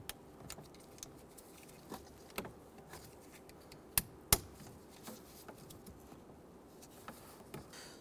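Scattered small plastic clicks and rattles as a wiring connector is worked off the back of a turn signal combination switch, its locking tab pried with a pick. Two sharp clicks about four seconds in are the loudest.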